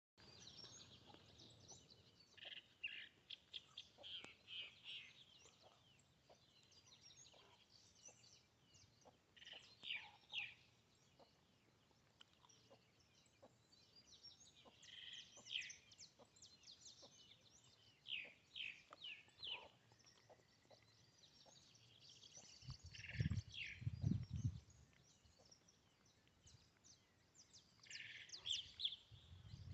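Birds chirping faintly in short clusters of quick, high calls that come back every few seconds. A low rumble comes in briefly near the end.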